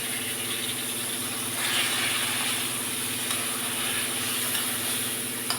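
Chicken and masala sizzling and steaming in a hot kadhai after a little water has been added, a steady hiss that swells briefly about two seconds in, over a steady low machine hum.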